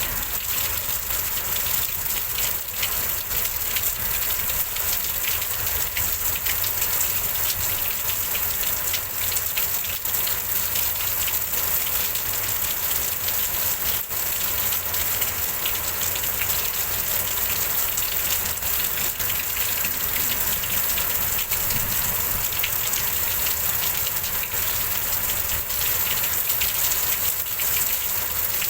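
Rainstorm: heavy rain falling steadily, a dense hiss of drops pattering on surfaces, with a low rumble underneath.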